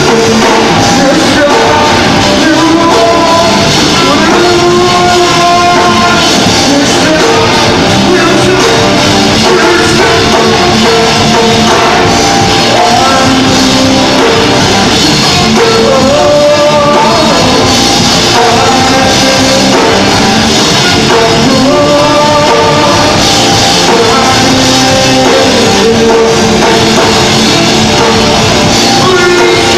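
A rock band playing a song, with a singer and a drum kit, loud and steady throughout.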